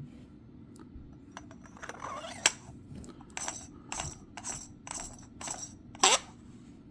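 Small metallic clicks and clinks from handling a lightsaber hilt, most likely while switching it on. There is a sharp click about halfway, then a run of about two clicks a second, with the loudest near the end.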